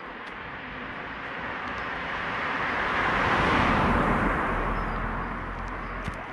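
A car passing by on an asphalt road: a steady tyre and engine rush that grows louder to a peak about halfway through, then fades away.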